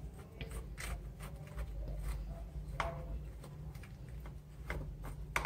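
Metal fork stirring soggy crushed Oreo biscuits and milk in a plastic ice-cream mould, with irregular light clicks and scrapes as the tines knock and drag against the plastic.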